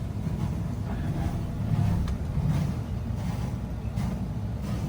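Triple Yamaha 350 hp outboard engines running, a steady low rumble.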